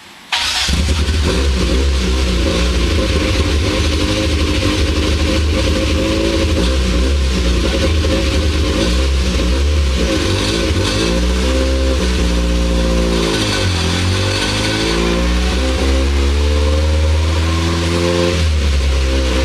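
Tuned VAZ car engine running hard at high revs on a chassis dynamometer. It cuts in abruptly at the start and stays loud throughout, with its pitch sagging and climbing back about two-thirds of the way through.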